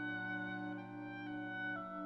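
Symphonic wind band of woodwinds and brass playing sustained chords over a held bass, the upper voices moving to new notes about every half second.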